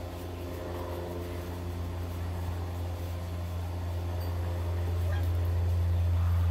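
Low engine drone, steady in pitch, growing steadily louder.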